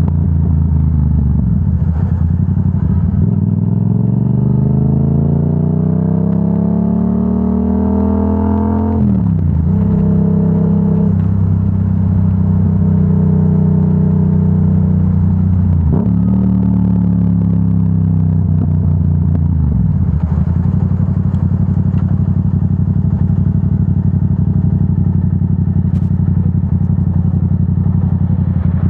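Yamaha R7's 689 cc parallel-twin engine through a Yoshimura AT2 full exhaust, under way. The revs climb in one long pull for several seconds, drop sharply about nine seconds in, then hold steady, dip again about halfway through and settle into a steady cruise.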